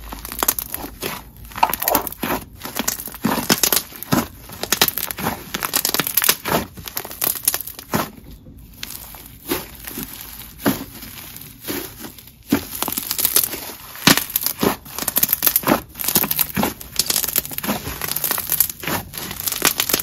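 A super thick, dry jelly slime being squished, pressed and folded by hand, giving an irregular run of sticky clicks, crackles and small air-bubble pops.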